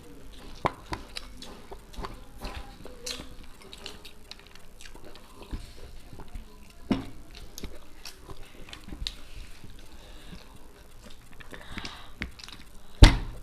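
Close-up chewing and wet mouth sounds of people eating, with many small scattered clicks and ticks. A single sharp knock comes near the end.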